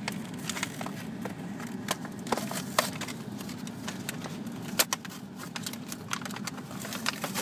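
Plastic packaging of a Trash Packs blind-pack trash bag crinkling, with irregular sharp clicks of small plastic toy figures being handled, over a steady low hum.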